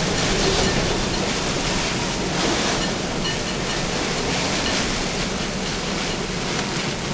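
Hurricane-force wind blowing, a steady dense rush of noise that swells and eases slightly.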